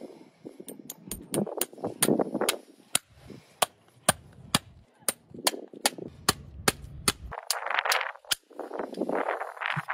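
Farrier's driving hammer striking horseshoe nails into a steel shoe on a horse's hoof: sharp metallic taps, about three a second, that stop about eight seconds in.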